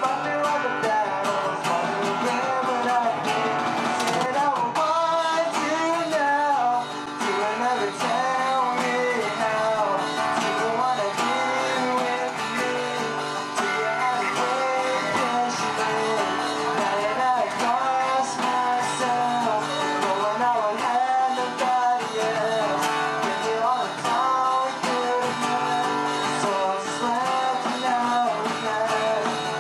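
A man singing a song to strummed acoustic guitar, with an electronic drum kit keeping a steady beat.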